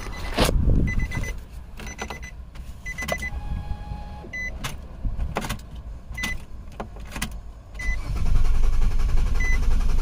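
2008 Nissan Quest 3.5-litre V6 being cranked by its starter without catching, a steady low rumble from about eight seconds in. The van had run out of gas and has just been given fuel. Several short high beeps and a few clicks come before it.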